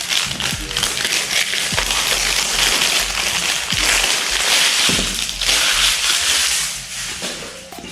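Cardboard and plastic product packaging being opened by hand: a dense rustling and scraping with scattered small clicks, easing off near the end.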